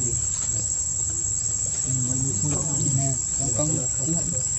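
Steady, high-pitched insect buzz in the background, with a low voice talking from about halfway through.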